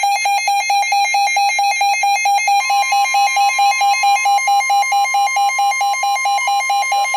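A weather radio receiver's alert alarm beeping rapidly, about six beeps a second. About two and a half seconds in, the steady single-pitch NOAA Weather Radio warning alarm tone joins it, signalling that a warning is being broadcast.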